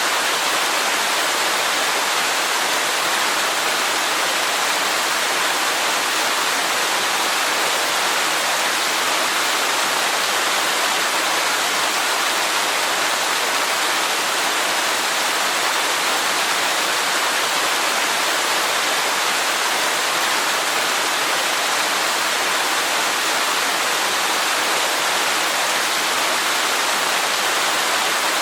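Waterfall: falling water making a steady, unchanging hiss, bright and airy with little deep rumble.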